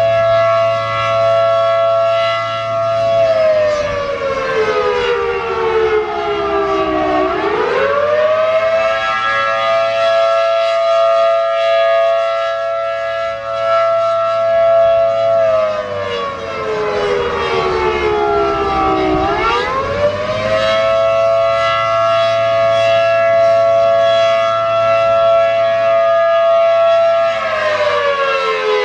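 ACA Allertor 125 dual-tone (10/12-port) rotating siren sounding the attack signal as a wail. Its two-note chord holds steady, slides down in pitch over about four seconds, then quickly climbs back. This happens twice, with another fall beginning near the end.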